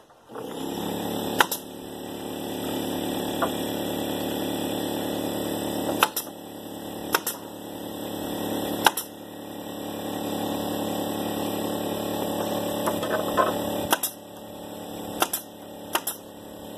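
Pneumatic nail gun firing into wooden fence boards, about seven sharp shots at irregular intervals, over the steady running of a pancake air compressor that starts just after the beginning.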